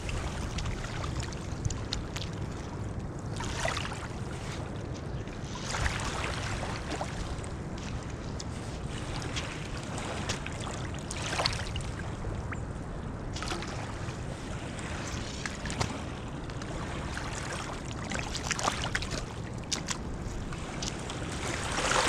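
Small waves washing in over wet mud and gravel at the water's edge, with a few louder splashy washes, over a steady rumble of wind on the microphone.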